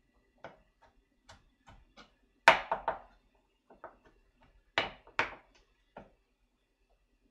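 Kitchen knife knocking on a cutting board while mincing mushroom: scattered knocks, a quick run of about four about two and a half seconds in, and two loud knocks a little after that.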